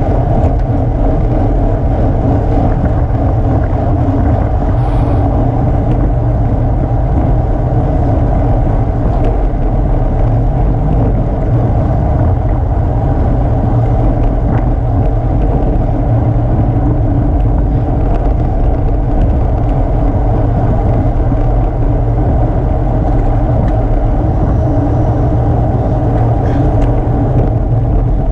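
Steady wind rush and buffeting on a bike-mounted action camera's microphone while riding a road bike at about 20 mph, a loud, even low rumble throughout.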